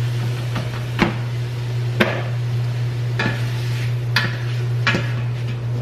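Shrimp and crab sizzling in hot melted butter in a skillet, with five sharp knocks of a utensil against the pan about a second apart, over a steady low hum.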